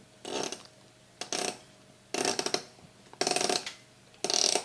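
Gaming-chair screws being tightened with a hand tool: five short clicking strokes, about one a second.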